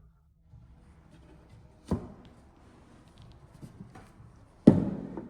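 Two sharp knocks over faint handling noise, about three seconds apart, the second louder and ringing on briefly.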